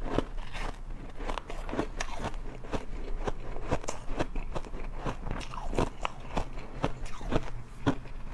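A mouthful of shaved ice being chewed close to the microphone: a steady run of sharp, crisp crunches, about three a second.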